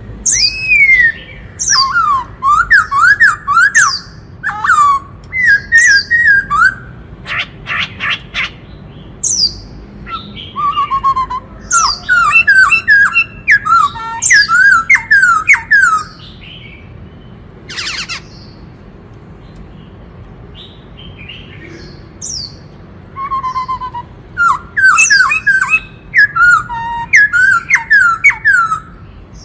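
Black-throated laughingthrush singing in loud bursts of quick, rising whistled notes mixed with higher calls and a few harsh notes, pausing for several seconds midway before starting up again.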